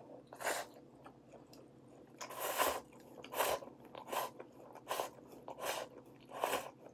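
A person eating instant stir-fried noodles (pancit canton) close to the microphone: a run of about seven short slurps and chews, one of them longer, a little under a second apart.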